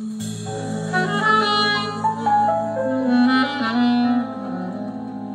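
Instrumental close of a slow Vietnamese ballad played through flat wooden-diaphragm speakers driven by tiny 1-inch exciters: a held melody line over sustained chords, getting quieter near the end.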